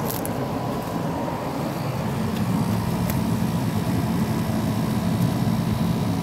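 Room air conditioner running, a steady fan and motor hum with a thin steady whine, growing a little louder about two seconds in.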